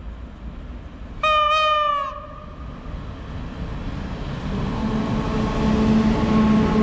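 Electric locomotive's horn sounding one short blast, dipping slightly in pitch, as it approaches with a passenger train. Then the rumble of the train running through the station grows louder, with a steady hum from the locomotive.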